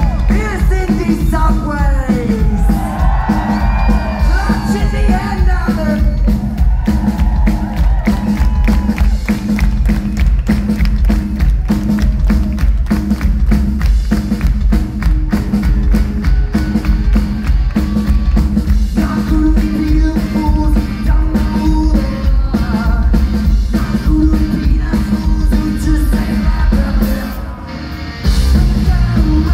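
Live rock band playing loudly: a fast, steady drum beat with electric guitar, bass and singing. Near the end the music drops for a moment, then the full band comes back in.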